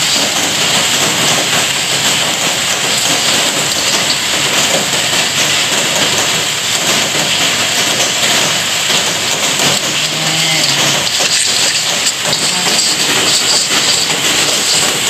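Heavy rain falling, a steady, loud hiss.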